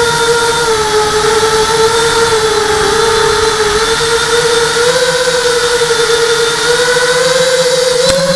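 Hexacopter's brushless motors and propellers whining steadily in flight, the pitch wavering gently up and down with the throttle, heard from a camera mounted on the frame.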